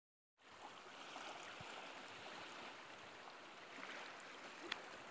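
Small waves lapping gently on a lakeshore: a faint, even wash starting about half a second in, with one sharp click near the end.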